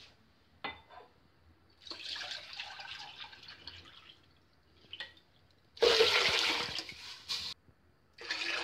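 Water poured from a glass measuring jug into a large metal pot of red lentils and water, in three splashing pours, the second the loudest. Two light knocks come about a second in.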